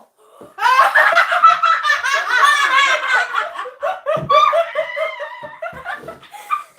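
People laughing hard in quick, high-pitched bursts. The laughter is loudest for the first few seconds and then trails off into weaker giggles.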